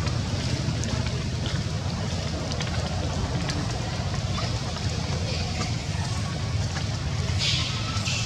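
Steady rumbling outdoor noise of wind buffeting the microphone over running stream water, with a few faint clicks and a brief hiss a little before the end.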